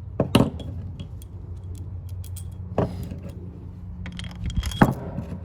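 Metal tools and engine parts clinking and rattling as they are handled, in three short clusters, over a steady low hum.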